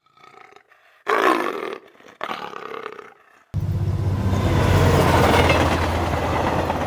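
Animal roar sound effect: two short growls, then a long loud roar from about halfway through.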